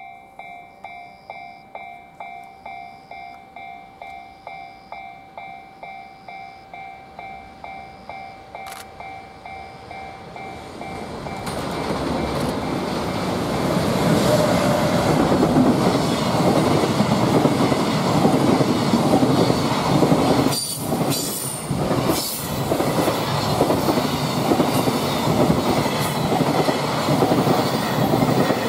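A railway level-crossing alarm rings about twice a second. From about eleven seconds in, a JR Freight EF210 electric locomotive hauling a container freight train passes close by, and the rumble and clickety-clack of the wheels over the rail joints grow loud and drown the bell out.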